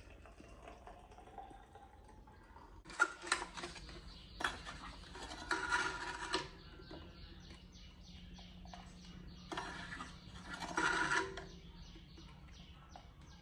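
Clicks, taps and rustles of a baby bottle being made up from a tin of powdered formula: the plastic lid and scoop knocking, the foil liner rustling, with three louder noisy spells of a second or two.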